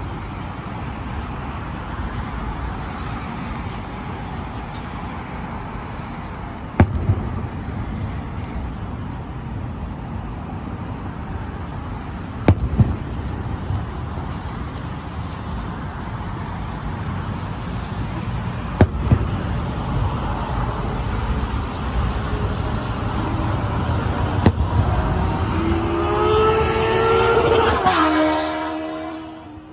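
Distant aerial firework shells bursting with sharp booms about every six seconds, two of them as quick doubles, over a steady background rumble. Near the end a vehicle passes close: its engine note rises, then drops suddenly as it goes by and fades.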